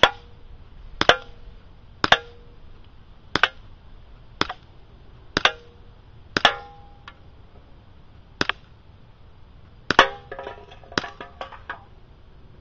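A string of airsoft pistol shots at an aluminium beer can, heard from beside the target: about nine sharp cracks roughly a second apart, several with a short metallic ring. Near the end comes a quick rattle of smaller clicks as the can is knocked down.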